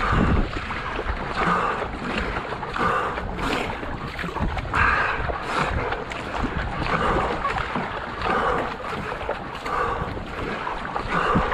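Racing paddler's strokes in the water, a regular rhythm of blade splashes and swishes about once a second, over the rush of the hull moving along. Low wind rumble on the microphone runs under it.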